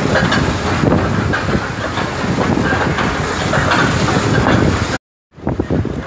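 Steady rumble of wind and choppy sea water, with the sound cutting out briefly about five seconds in.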